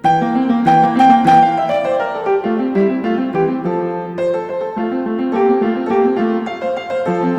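Background music: a piano playing a quick melody of short notes over lower chords, starting afresh after a fade-out just before.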